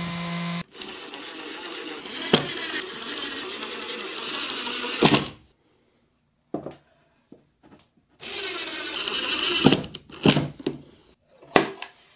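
Electric delta sander running, then sanding plywood in two stretches of a few seconds with a short silent gap between. A few light wooden knocks follow near the end.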